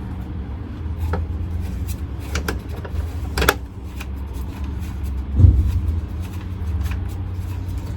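Light clicks and knocks of hand work on a truck door's handle mechanism as a return spring is hooked through a drilled hole, with one heavier knock about five and a half seconds in. A steady low hum runs underneath.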